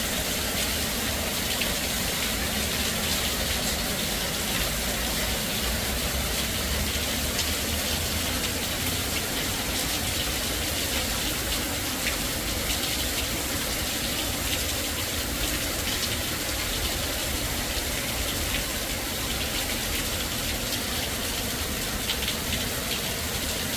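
Heavy rain falling in a steady downpour, a constant hiss with a low rumble underneath.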